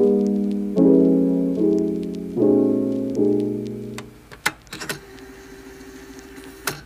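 Background piano music: soft chords struck about every second, thinning after about four seconds into a quieter held stretch with a few faint clicks.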